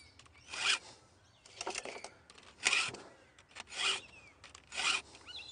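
A Stihl file-guide sharpener, with a round file working the cutter and a flat file working the raker, is pushed across a chainsaw chain's teeth. It makes five even rasping strokes, about one a second.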